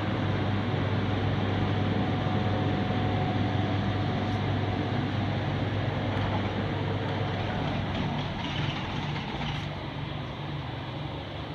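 Walk-in cool room's refrigeration unit running, a steady mechanical hum and fan noise that grows fainter after about eight seconds.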